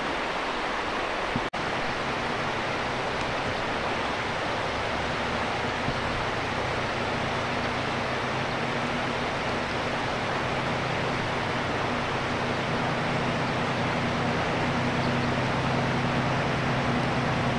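Steady rush of a mountain river, with a diesel locomotive's engine droning underneath and growing slowly louder as the train climbs towards the listener. The sound drops out briefly about a second and a half in.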